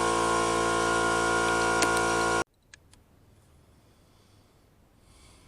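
A small motor running with a steady, unchanging whine over a hiss, cutting off abruptly about two and a half seconds in.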